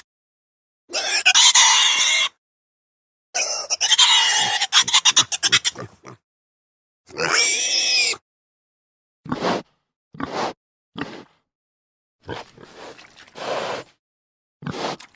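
Mini pig grunting and calling in a string of separate short clips, each cut off by silence: a longer higher-pitched call, a fast run of short grunts, another pitched call, then several brief grunts.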